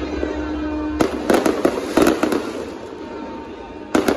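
Aerial fireworks going off in sharp bangs, ending in a dense run of crackling near the end. Under them a tugboat's horn sounds one steady low note that stops about a second in.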